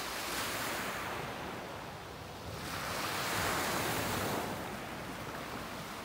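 Sea surf washing up and drawing back on a pebble shore, swelling twice with a lull about two seconds in.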